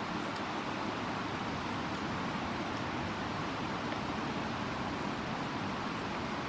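Steady, even rushing noise with a few faint clicks.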